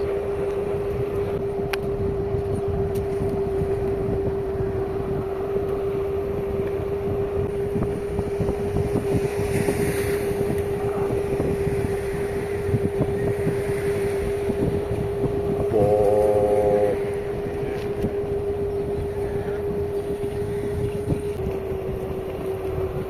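Boat engine running with a steady hum, with wind buffeting the microphone. About two-thirds of the way through, a short louder tone lasts about a second.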